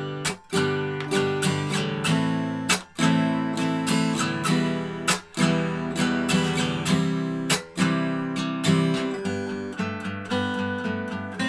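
Acoustic guitar strummed through the open chords G, A minor, E minor and C in a steady rhythm with muted, percussive strokes. About nine seconds in it changes to picked single notes over bass notes.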